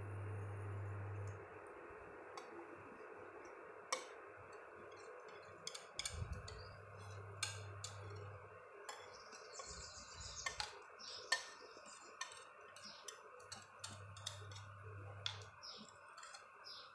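Faint, scattered clicks and taps of a spoon against a bowl as a thick yogurt-and-spice mixture is scraped out into a pan.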